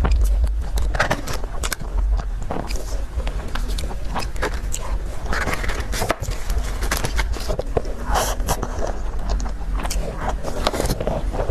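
Close-miked eating: a person chewing and biting dessert, with many quick wet clicks and crackles.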